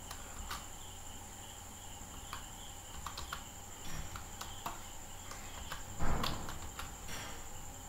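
Computer keyboard keys clicking as a short phrase is typed: scattered single keystrokes with pauses between them. A louder, duller thump comes about six seconds in. A faint steady high-pitched whine runs underneath.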